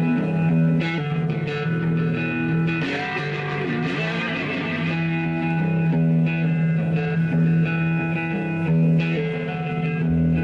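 Electric guitar played live through an amplifier: an instrumental passage of sustained picked notes that change every second or so, with low bass notes coming in near the end.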